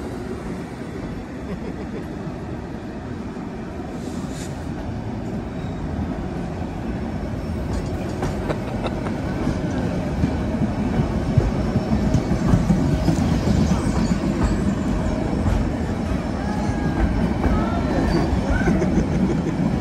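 White Pass & Yukon Route train running along the track, heard from aboard: a steady rumble of wheels and cars with clickety-clack over the rail joints, growing slowly louder, and faint high wheel squeaks near the end.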